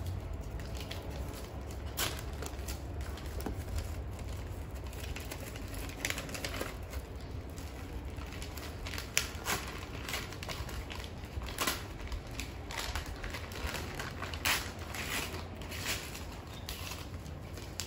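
Rustling and crinkling of clothing and packaging being handled in an open cardboard box, with scattered sharp crackles over a low steady hum.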